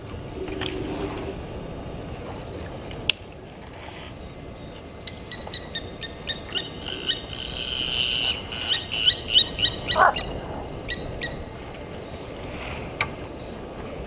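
Blacksmith lapwing giving its sharp metallic 'tink' alarm calls in a rapid run, a few a second, beginning about five seconds in and loudest near ten seconds: the bird is mobbing an elephant near its nest. One lower, sliding call sounds about ten seconds in.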